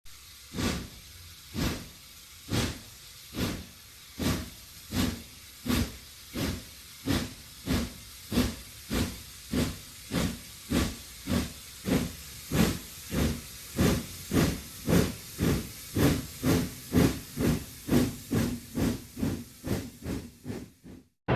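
Steam locomotive sound effect: exhaust chuffing as the engine pulls away from a standstill, the beats starting about a second apart and quickening steadily to several a second, over a steady hiss of steam. It cuts off suddenly near the end.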